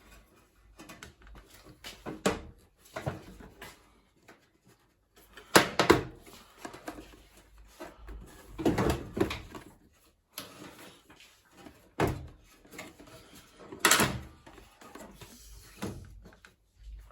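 Plastic clips of a washing machine's control panel being pushed down and released: a series of plastic clicks and knocks with handling rattle between them, the loudest about six and fourteen seconds in.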